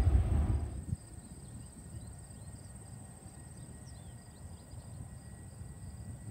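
Jet airliner engine noise from a departing plane, which cuts off suddenly about a second in. After that comes quiet outdoor ambience: a steady high insect drone and scattered faint chirps.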